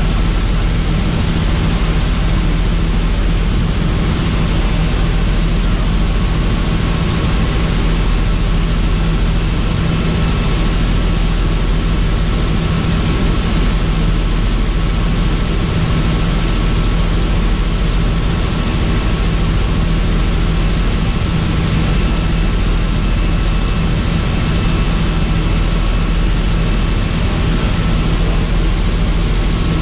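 Helicopter in flight: a loud, steady rotor and engine drone with a deep hum and thin, steady high whines over it.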